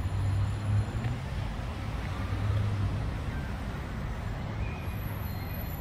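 Steady low rumble of distant road traffic, swelling a little about half a second in and again around two seconds in.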